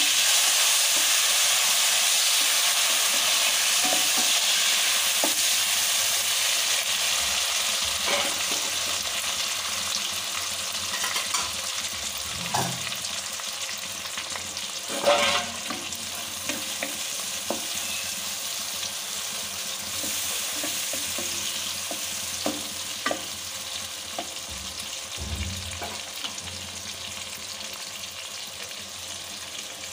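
Chopped tomatoes frying in hot mustard oil in a kadai: a steady sizzle that slowly dies down as they start to cook down. A few knocks of the spatula against the pan are heard, the loudest about halfway through.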